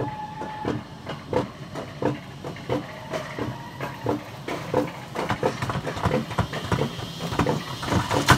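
Alpine coaster sled's wheels rolling along its metal rails with a low rumble, knocking over the rail joints in a steady clickety-clack about three times a second.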